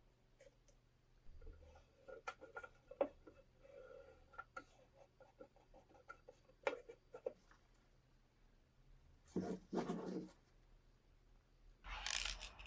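Light clicks and taps of small parts being handled, with a short scraping rustle about nine seconds in and a louder hissing scrape near the end.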